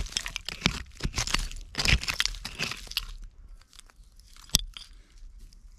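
Gloved hands scraping and raking loose dirt and broken glass debris out of a dump-pit wall: a quick run of crunching scrapes for about three seconds, then quieter, with one sharp click a little past the middle.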